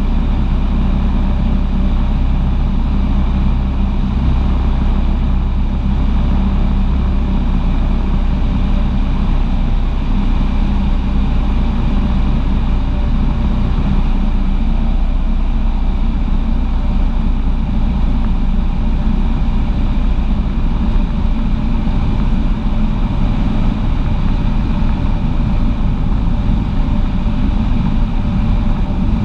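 Cessna 150's four-cylinder Continental O-200 engine and propeller running steadily, with a slight change in tone about ten seconds in.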